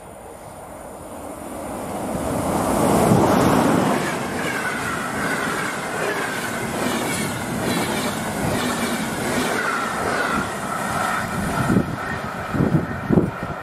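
Electric locomotive, an EP09, hauling an Intercity passenger train past at speed: the sound swells as the locomotive goes by about three seconds in, then the coaches rush past with a steady noise of wheels on rail and a wavering ringing from the wheels and rails. A few sharp wheel clacks on rail joints near the end.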